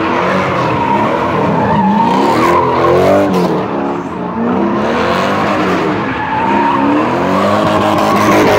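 A car drifting with its tires squealing continuously while the engine revs up and down.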